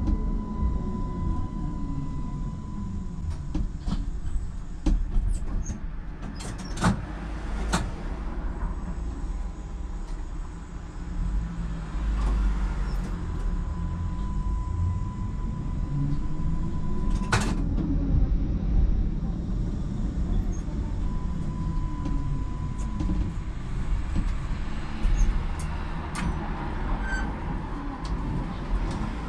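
Tram running on its rails: a steady low rumble from the wheels and running gear, with the motor whine sliding up and down in pitch as the tram speeds up and slows. A few sharp clacks from the wheels on the track stand out, two close together about seven seconds in and one more a little past the middle.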